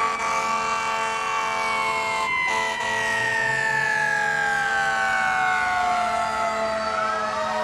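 Fire engine siren holding one long wail whose pitch slowly falls.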